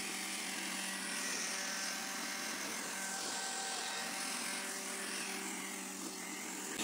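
Homemade parts cleaner, an electric sander bolted to a stainless fryer basket in a bin of cleaning fluid, running steadily with a constant hum, sounding like a garbage disposal as it shakes the carburetor parts clean.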